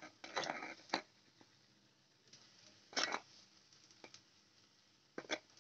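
Chilli powder being tipped into a kadai with the tempering: a few faint, short rustling scrapes. There are about three brief bursts, around the start, about three seconds in and near the end.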